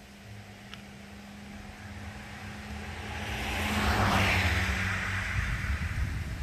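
A car driving past on the road, its engine and tyre noise growing to a peak about four seconds in and then fading away.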